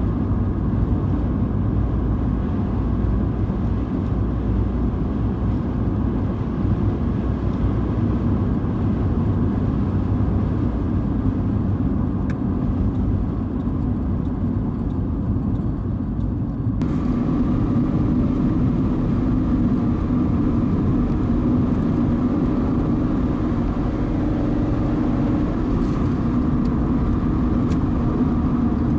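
A car driving at road speed: a steady rumble of tyre and engine noise. About two-thirds of the way through, the noise shifts suddenly to a brighter tone with a hum in it.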